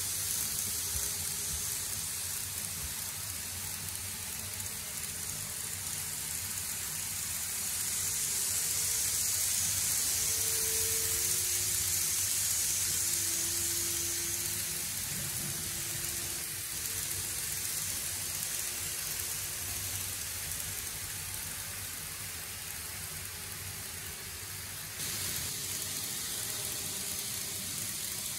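N gauge model trains running on curved track: a steady hiss of wheels and motors with faint whining tones that glide up and down. The hiss grows louder for several seconds in the middle as a train passes close, and it jumps up suddenly near the end.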